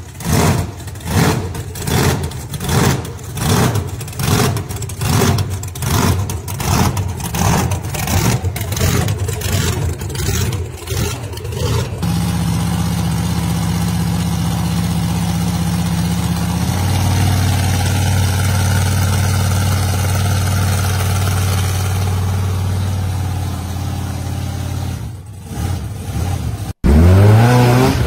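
Monster truck engine: first pulsing in a steady rhythm about twice a second, then, after an abrupt change, running with a steady drone. Near the end another engine revs up with rising pitch.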